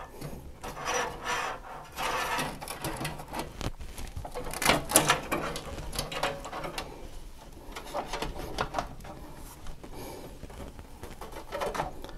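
Hands working inside a PC case, moving power cables and parts: irregular rubbing and scraping, with a few small sharp clicks, the loudest scrape about five seconds in.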